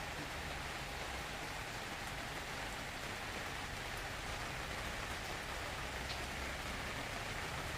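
Steady rain falling, an even hiss with a couple of faint single drop ticks about four and six seconds in.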